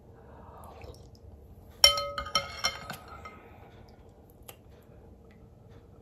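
Metal spoon clinking against a glass serving bowl while scooping, a quick run of ringing clinks about two seconds in. The first clink is the loudest.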